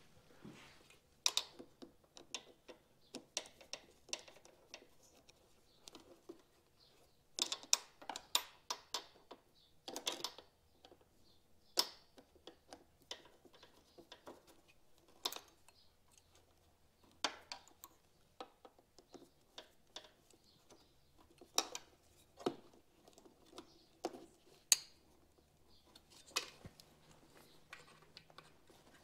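Irregular small clicks and taps from hands working a screw-type hose clamp and rubber intake boot onto a motorcycle carburetor, with a busy run of clicks about a quarter of the way in.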